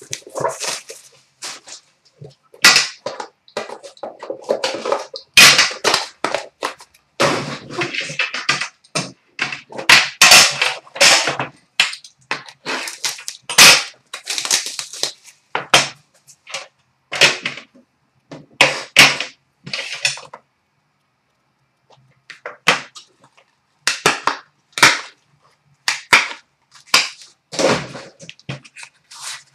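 Plastic wrapping crinkling and tearing, and sharp knocks of a metal card tin and its lid being handled on a glass counter, as an Upper Deck The Cup hockey box is unwrapped and opened. The crackling goes in irregular spurts, with a pause of about two seconds a little past the middle.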